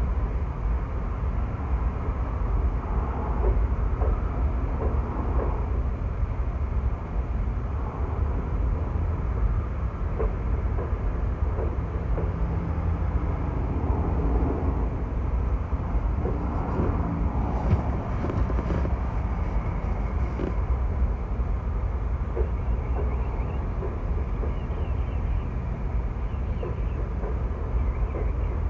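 Freight train rolling past: a steady low rumble with scattered clicks and rattles from the wheels and cars.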